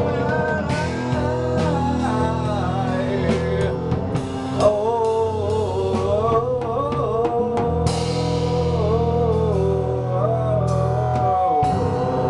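Live rock band jamming: an electric guitar and a drum kit with hand drums play together under a man's sliding, wavering singing.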